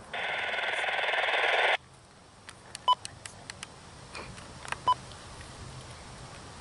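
A loud rushing noise swells for about a second and a half and cuts off abruptly. Quieter outdoor background follows, with scattered clicks and two short electronic beeps about two seconds apart.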